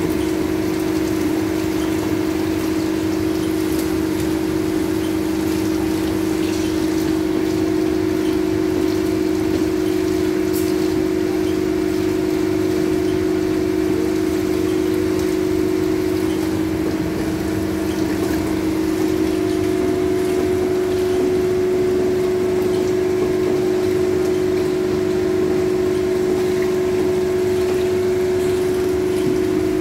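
Loud, steady machine hum at a constant pitch with a few higher overtones, over a dense noisy wash; it does not change at all.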